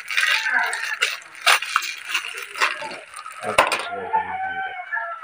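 Clicking and rattling of a tripod light stand's metal and plastic parts being handled and fitted together, then a rooster crowing once in the background about three and a half seconds in.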